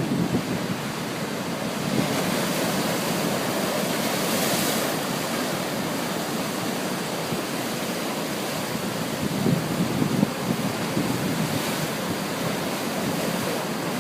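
Ocean waves breaking and washing in a continuous rush of surf that swells up about four seconds in.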